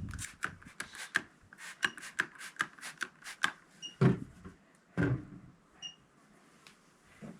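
A quick, irregular string of sharp clicks and taps, followed by two dull thumps about four and five seconds in.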